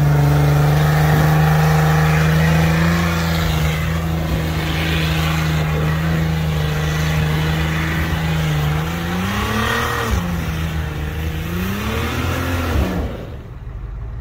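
Jeep Wrangler engine held at high revs while its tires spin through deep snow. Near the end the revs swing up and down twice, then the engine sound drops away sharply.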